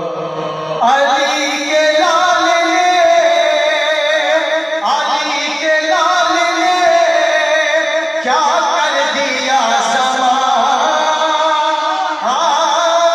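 Marsiya recitation: unaccompanied voices chanting a Shia Urdu elegy in long, drawn-out melodic phrases with a wavering vibrato. A new phrase begins about every four seconds.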